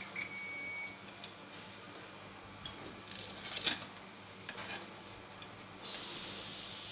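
Clicks and rattles of a computer power supply's circuit board and metal case being handled and lifted apart, loudest about three and a half seconds in. A short beep sounds near the start, and a steady hiss comes in about six seconds in.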